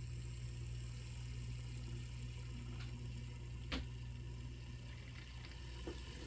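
HO-scale model diesel locomotive running on its track, a steady low hum with a few sharp clicks, the loudest about the middle.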